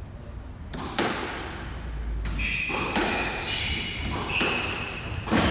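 Squash rally on a wooden court: a sharp racket-on-ball strike about a second in, then further hard strikes and ball thuds against the walls, the loudest near the end. Rubber-soled court shoes squeak on the wooden floor through the second half.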